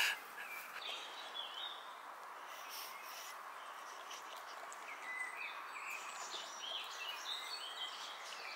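Steady outdoor background hiss with small birds chirping now and then.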